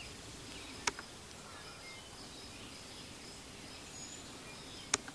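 Quiet outdoor ambience: faint bird chirps and a faint, high, steadily repeated trill, with two short sharp clicks, one about a second in and one near the end.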